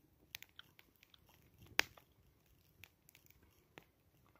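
Faint sipping and swallowing of pale ale from a can, with scattered small wet mouth clicks; the loudest click comes just under two seconds in.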